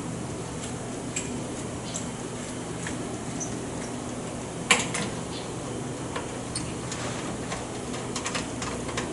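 Scattered light metallic clicks and taps as pneumatic components are handled and fastened onto a training panel, with one sharper click about halfway through and a quick run of small ticks near the end, over a steady low hum.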